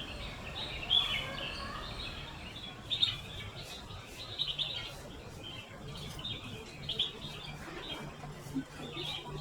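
Dusky crag martins chirping at the nest: many short, high chirps and twitters in quick, irregular succession.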